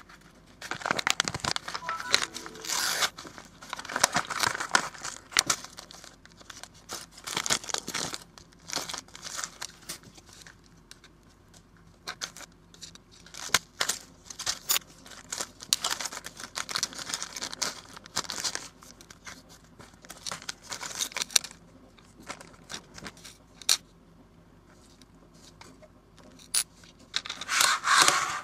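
Fingerboard truck packaging being torn open and crinkled by hand, in irregular bursts of rustling and tearing mixed with sharp clicks and taps.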